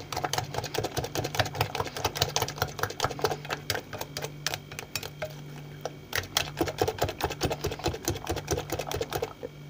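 Small wire whisk beating egg-and-flour batter in a glass bowl, the wires clicking against the glass several times a second, with a short lull in the middle.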